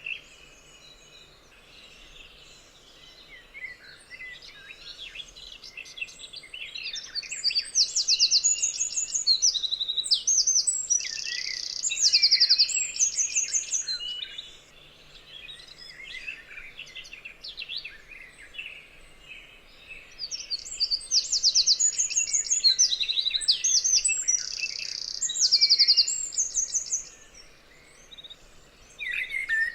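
Forest songbirds singing and chirping, with two loud stretches of fast trilled song, one about a quarter of the way in and one past the middle, and quieter scattered chirps between them.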